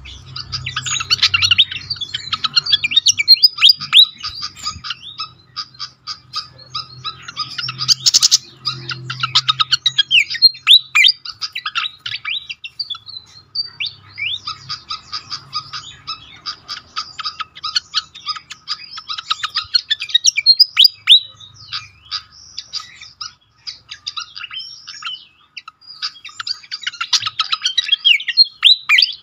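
Malaysian pied fantail singing: several bursts of rapid, squeaky chirping notes with short pauses between them. A single sharp click comes about eight seconds in.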